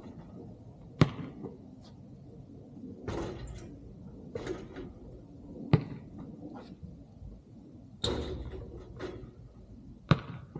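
A basketball hitting the court hard three times, about four and a half seconds apart, each a sharp thud, with shorter scuffing noises in between.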